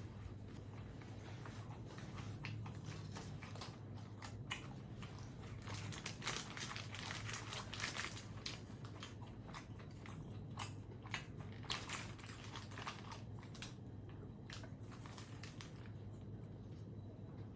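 Close-miked eating: a person biting into and chewing crisp fast food, with many short crunches that come thickest in the middle of the stretch.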